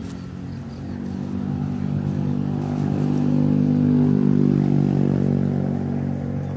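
A motor vehicle's engine passing by: a steady engine hum that grows louder up to about four seconds in, then fades.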